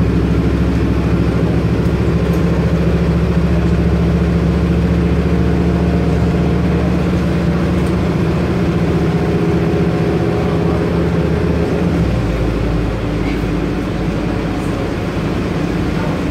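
Scania N230UD bus's five-cylinder diesel engine running steadily with a deep hum, heard from inside the upper deck of the double-decker. About twelve seconds in, the low engine note changes and the sound gets a little quieter.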